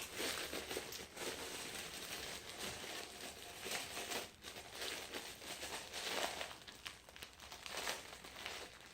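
Packaging crinkling and rustling in an uneven run of small crackles as a squishy toy is handled and taken out of its wrapping.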